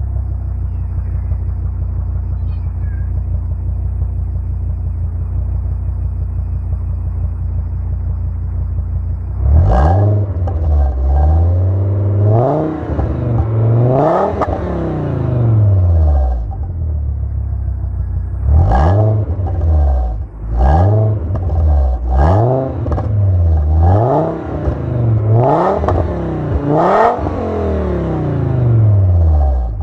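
Fiat Bravo HGT's 2.0 five-cylinder engine heard through its VIS exhaust, idling steadily for about nine seconds. It is then blipped repeatedly, about eight short revs, each rising and dropping back to idle.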